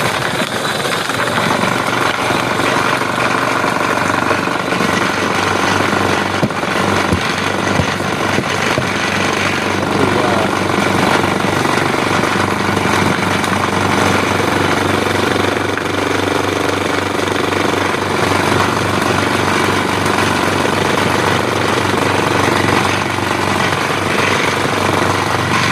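Engine-driven chopper machine running steadily under load, its blades shredding young papaya fruit for chicken feed with a loud, continuous clattering noise.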